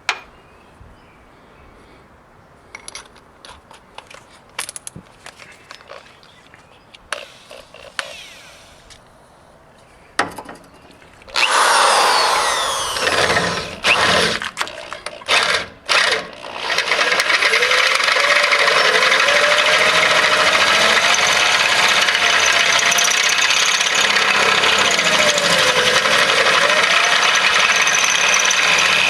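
Power drill boring out a rusty steel frame rivet with a 7/16-inch bit. After a few light clicks and knocks, the drill starts about eleven seconds in, running in short bursts and then steadily, with a wavering whine as the bit cuts into the metal.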